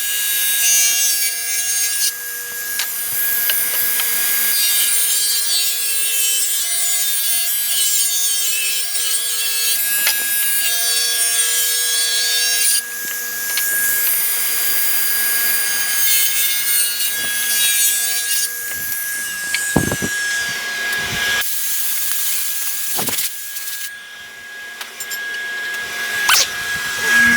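Table saw running with a steady motor whine while ripping a 2x6 board lengthwise into strips. The cutting noise of the blade in the wood is loud for about the first two-thirds, then drops away while the saw keeps spinning, with a few knocks of wood being handled.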